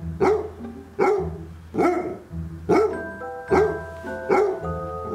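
A dog barking over and over in an even run, a little more than one bark a second, over background music whose held notes come in about halfway through.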